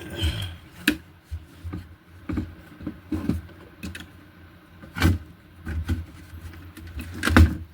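Loudspeakers being handled and fitted into an LED TV's casing: a series of irregular knocks and clicks, the loudest about five seconds in and just before the end.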